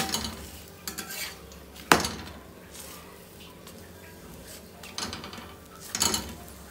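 Steel spatula knocking and scraping on a flat tawa while pressing and turning a paratha. A sharp clank about two seconds in is the loudest sound, with scraping strokes near the end.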